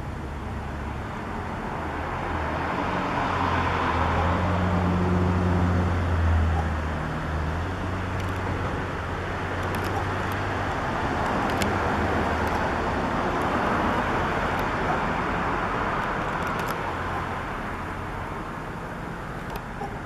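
Road traffic: vehicles passing, the sound swelling and fading twice, the first with a low engine hum that peaks about six seconds in.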